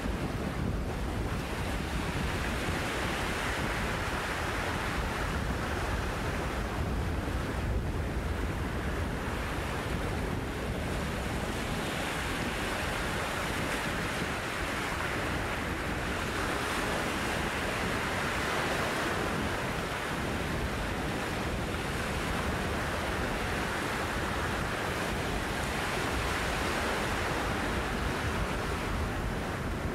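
Choppy bay waves breaking and washing over a rocky shoreline, the surf swelling and fading every few seconds, with wind buffeting the microphone as a low rumble underneath.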